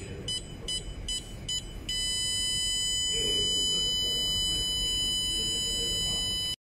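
Buzzer of an Arduino ultrasonic distance alarm giving short high beeps about two and a half times a second, a sign that an object is within 20 cm. About two seconds in it changes to one steady, unbroken beep, the signal that the object is closer than 10 cm. The tone cuts off suddenly near the end.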